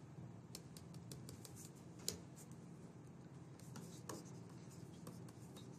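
Faint taps and scratches of a stylus on a pen tablet, with a sharper tap about two seconds in, over a low steady hum.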